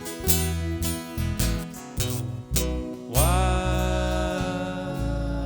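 Acoustic folk band playing an instrumental break: strummed acoustic guitars, then a long held melody note slides in about three seconds in and sustains over the strumming.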